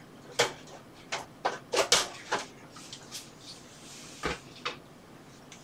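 MSI MAG Infinite S3 desktop computer case being handled and moved: a scattered series of short, sharp clicks and knocks, about ten in all, as its panels and parts bump.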